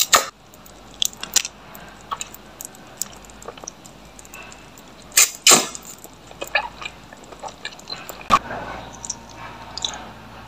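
Close-miked mouth eating sounds: a few sharp bites and crunches, the loudest two about five seconds in, with small wet chewing clicks and lip smacks between.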